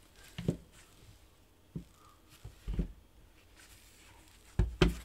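A few short dull knocks and handling noises as gloved hands tug and work at the stuck front handguard of a Heckler & Koch MR308 rifle on the bench, the loudest pair near the end.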